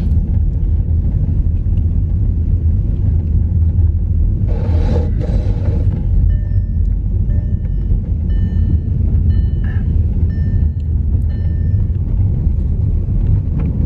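Steady low road rumble of a car driving. From about the middle there is a run of short, high electronic beeps.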